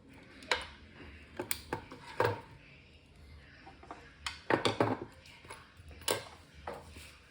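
Irregular clatter of hard objects being handled: a dozen or so sharp clicks and knocks, some in quick clusters, over a faint low hum.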